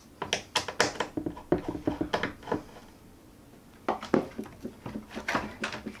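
Sharp clicks and light metallic taps of a screwdriver and small metal parts being handled inside an opened iMac's aluminium housing. They come in two clusters with a pause of about a second between them.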